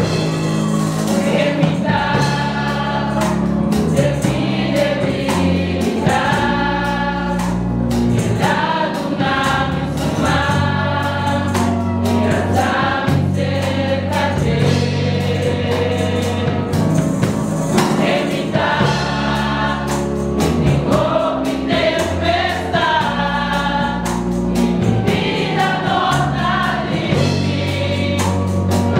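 A choir singing a gospel song over instrumental backing with a steady bass line and beat.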